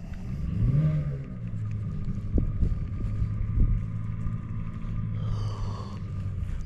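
A steady low motor hum that rises in pitch about a second in and then holds.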